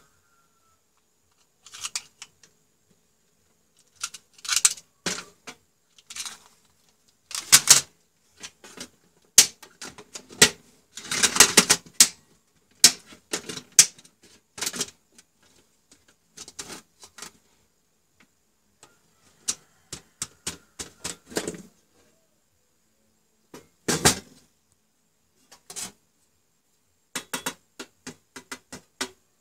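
Plastic-cased Siemens modular circuit breakers clicking and clattering as they are snapped onto a metal DIN rail and pushed along it. The clicks come irregularly, with a longer run of clatter a little before the middle and one sharp knock near the end.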